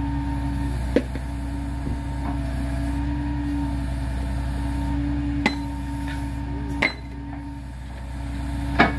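Grapple truck's engine running steadily with a held hum, while steel rail handled in the grapple clanks sharply four times, each clank ringing briefly. The loudest clank comes near the end.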